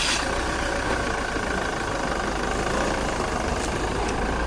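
Van engine idling steadily, with a low hum and a thin steady whine over it.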